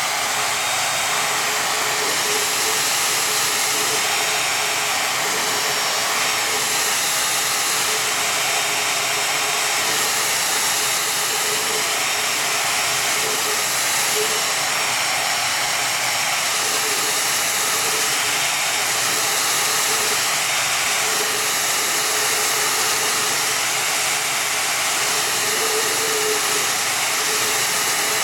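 Hand-held hair dryer running steadily at close range, a constant rush of air with a faint hum, aimed at a soft clay teapot handle to dry and firm it.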